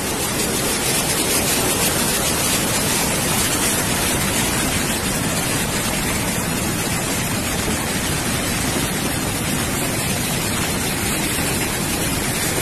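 Steady, unbroken rushing of a fast, muddy flash-flood river in spate.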